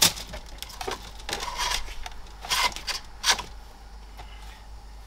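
A cable being pulled up through the dashboard trim by hand: a sharp click at the start, then several short rustles and scrapes, thinning out after about three and a half seconds.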